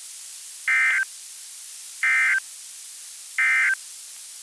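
NOAA Weather Radio SAME end-of-message signal: three short, identical bursts of digital data tones about a second apart, marking the end of the alert broadcast. Steady radio hiss runs underneath.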